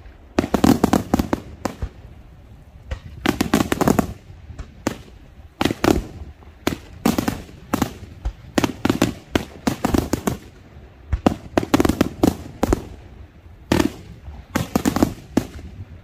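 Daytime aerial fireworks: shells bursting overhead in rapid clusters of sharp cracks and bangs, a new volley every second or two.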